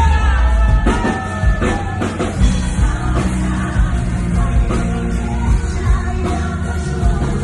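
Live pop-rock song: a male singer's voice over loud band backing with a steady, driving beat.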